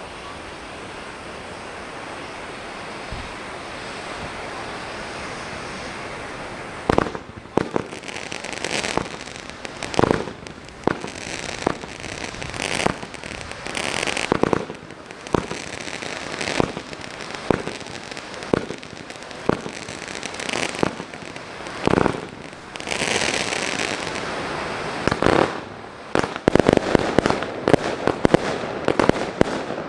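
Fireworks display: a steady hiss for the first several seconds, then separate sharp bangs at irregular intervals from about seven seconds in, turning into a rapid, dense volley of bangs near the end.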